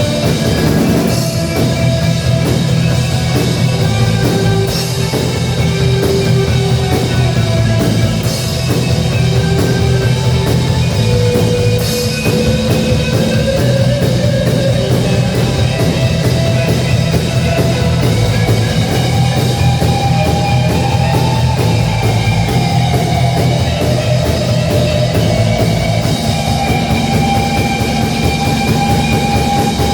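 A rock band playing a song with drum kit and guitar, loud and steady.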